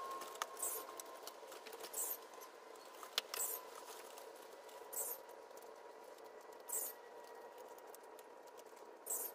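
Scissors snipping through the roots of a bougainvillea bonsai's root ball during root pruning: about six short, crisp cuts, one every second and a half or so, over a faint steady hum.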